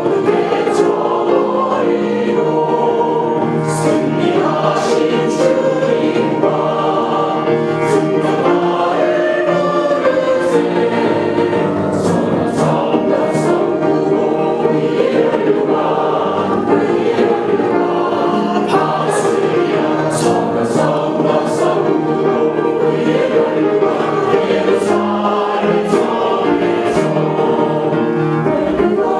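A church congregation singing a Korean hymn together, with steady, continuous massed voices.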